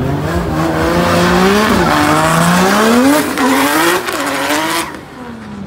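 Drift car engine revving hard, its pitch climbing and dipping as the throttle is worked, over the hiss and squeal of tyres sliding sideways; it falls away about five seconds in.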